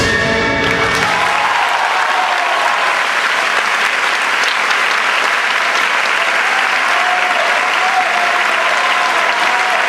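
Theatre audience applauding loudly and steadily, with a drawn-out wavering cheer heard above the clapping. The last chord of the orchestral ballet music dies away in the first second.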